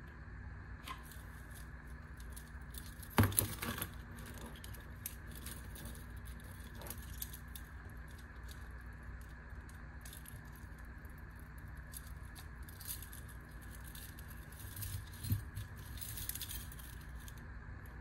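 Keys and hex screwdriver bits on a carabiner keychain clinking and jangling as bits are fitted into keychain bit holders. There are scattered small clicks, with two sharper clicks about three seconds in and again near fifteen seconds, over a steady low hum.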